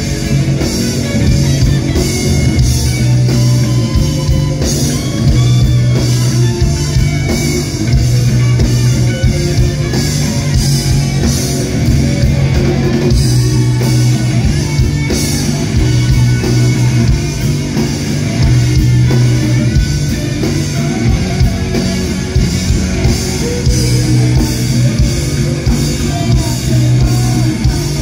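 Live rock band playing: electric guitars over a drum kit and a steady bass line.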